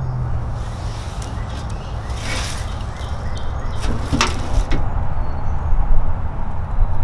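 Rustling and a sharp metallic click as a badly rusted Civil Defense metal drinking-water can is handled and turned over by hand, over a steady low rumble.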